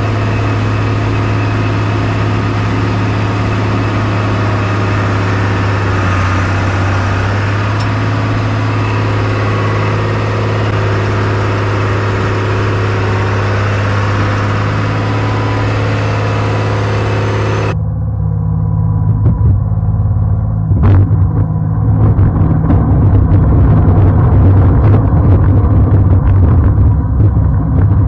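1998 Bombardier BR-160 snowcat's engine running steadily under load while its front blade pushes snow. About two-thirds of the way in the sound changes abruptly and gets a little louder, the engine hum now mixed with irregular knocks as snow churns against the blade.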